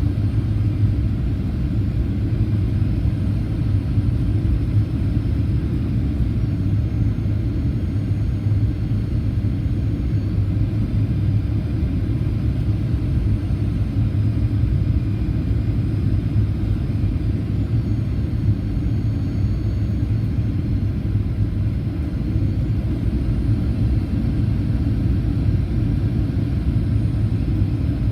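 Steady low rumble of a Boeing 737-800's CFM56 engines and airflow heard from inside the cabin, with a faint high whine that drifts slightly in pitch.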